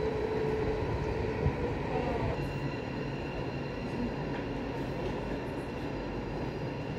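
A train running along the platform with a steady rumble. A thin high whine joins in about two seconds in.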